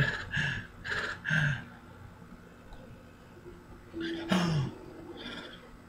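A man's voice sighing: a run of short breathy sighs in the first second and a half, then one longer sigh falling in pitch about four seconds in.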